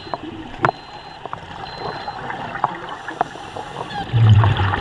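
Underwater sound around a scuba diver: a steady hiss of water with scattered sharp clicks, then near the end a louder, low rush of bubbles, typical of a diver's regulator exhaling.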